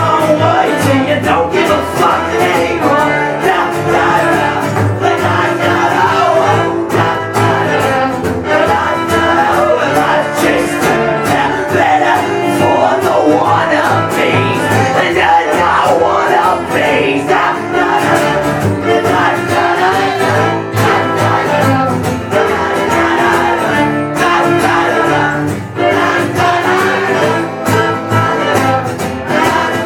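A band playing live, with guitars and a singing voice over a loud, steady wall of music.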